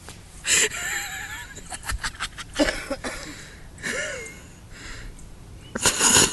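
People laughing in several breathy bursts, with a few short voiced sounds, the loudest burst near the end.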